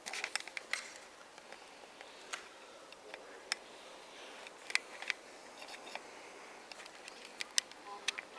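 Scattered short clicks and taps in a quiet room, a quick cluster in the first second and then single ones every second or so: handling noise from the hand-held camera as it is moved.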